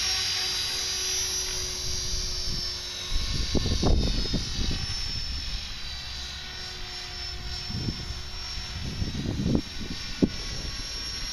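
Electric Align T-Rex 450 Pro V2 RC helicopter flying overhead with a steady high whine from its motor and rotor head. Its main blades are running out of track, which the pilots blame for its noise. Two spells of low rumbling buffets, from wind on the microphone, are the loudest parts, about three seconds in and again about eight seconds in.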